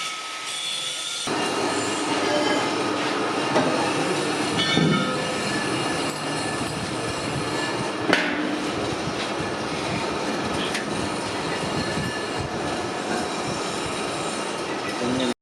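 Bronze being worked with metal tools or machinery: a steady, loud metal-on-metal screech and scrape with many high squealing tones, broken by a couple of sharp knocks.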